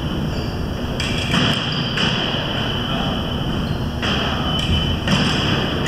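Thuds and shuffling of fencers' footwork on the strip, over the steady background noise of a large hall.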